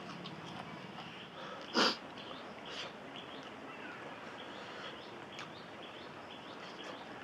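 A person eating: soft chewing and small mouth and lip clicks, with one short, loud sniff about two seconds in.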